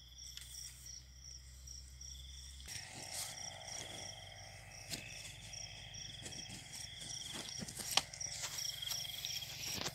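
Crickets and other field insects trilling steadily at night, one insect in a higher pulsing tone, with a few sharp clicks and rustles, the loudest about eight seconds in.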